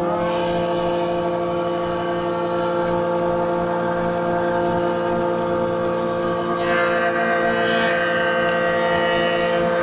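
S2F4 double-sided jointer running under load, its cutter heads planing a wooden board fed by the chain feeder: a steady whine of several fixed tones with the rush of the knives cutting wood. The cutting noise grows brighter about seven seconds in.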